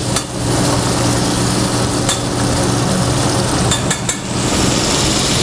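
Vindaloo sauce sizzling in a hot stainless steel pan while it is stirred with metal tongs, giving a few short clicks of metal on the pan. A steady low hum runs underneath.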